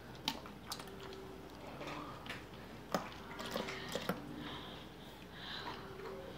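A thin stream of tea mixed with gelatin trickling from a measuring cup into a plastic bottle, faint, with a few small clicks and taps along the way.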